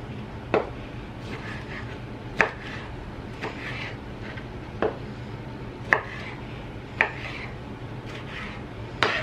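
Kitchen knife dicing a tomato on a wooden slab chopping block: about six sharp knocks of the blade striking the wood, irregularly spaced a second or two apart.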